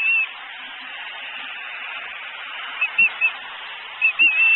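Bald eagle giving short, high-pitched chirping calls: one brief call at the start, three quick chirps about three seconds in and two more just before the end, over a steady hiss.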